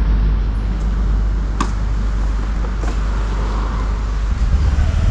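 Motorcycle engine idling with a steady low pulse, its note rising and growing louder near the end as it is revved to pull away.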